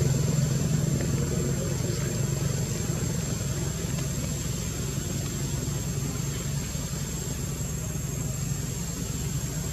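A motor vehicle's engine running steadily as a low hum that slowly fades, with a thin steady high-pitched tone above it.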